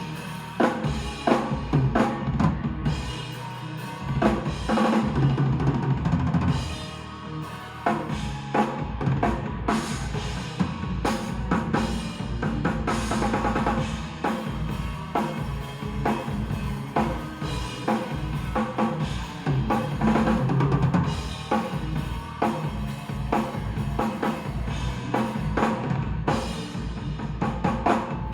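Drum kit played to a steady beat, with kick drum, snare and rimshots, over a backing track with a sustained bass line.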